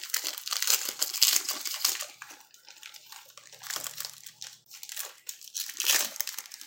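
The plastic wrapper of a Donruss football trading-card pack crinkling as it is torn open and handled. The crackle is loudest in the first two seconds and again near the end.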